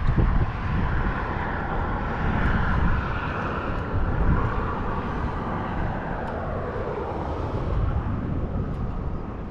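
Wind gusting on the microphone, an uneven rumble, with a steady droning hiss above it that slowly drops in pitch and fades toward the end.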